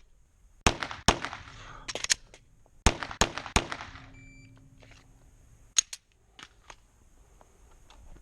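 Glock 17 9 mm pistol fired in two quick strings of shots, each shot with a short echo, then one more shot about two seconds later.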